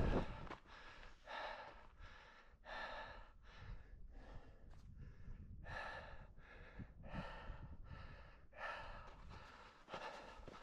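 A person breathing hard and fast, about one breath a second, out of breath from the steep climb, with a low rumble of wind on the microphone underneath.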